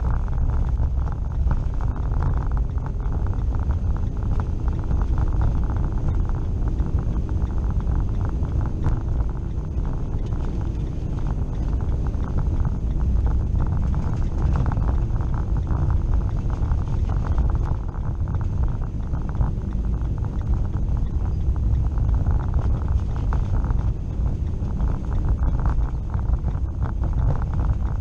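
Steady low rumble of a vehicle's engine and tyre noise on a snow-covered road, heard from inside the cab.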